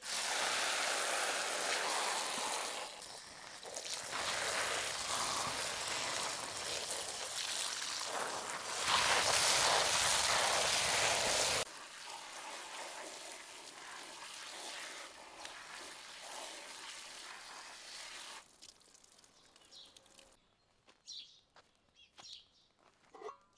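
Water spraying from a garden hose spray gun onto grape leaves in a stainless-steel colander and running through the holes: a steady rushing hiss that drops suddenly to a softer spray about twelve seconds in and stops about eighteen seconds in.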